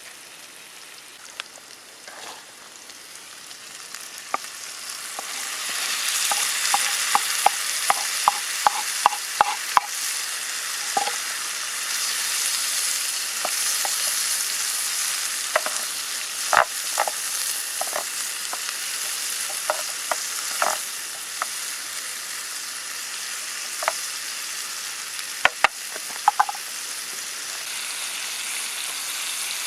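Chopped onions and vegetables sizzling in butter in a pan over embers, the sizzle swelling louder about five seconds in. A quick run of sharp clicks from a utensil stirring against the pan follows, then scattered clicks.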